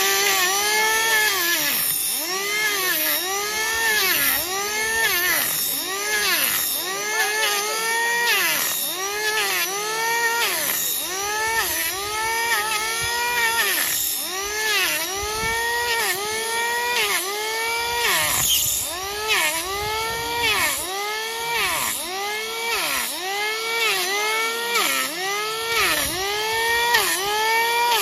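Handheld electric planer shaving down a donkey's hoof: the motor runs without stopping, its pitch rising and sagging over and over, about once a second, as the blades bite into the horn on each pass.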